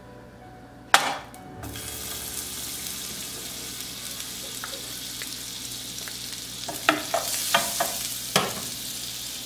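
Butter sizzling as it melts in a hot frying pan, starting with a sharp tap about a second in as the pat is knocked off the spatula into the pan. Near the end comes a run of clicks and scrapes as the spatula pushes the butter around the pan.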